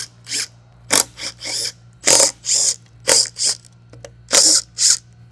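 Cordless impact driver with a socket spinning out the bearing-housing bolts of a centrifugal blower, running in about ten short bursts with brief pauses between them.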